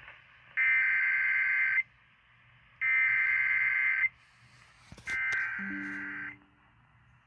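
Emergency Alert System SAME header: three bursts of shrill digital data tones, each about a second long with a second's gap between them, marking the start of an emergency alert broadcast. A lower tone briefly joins under the third burst.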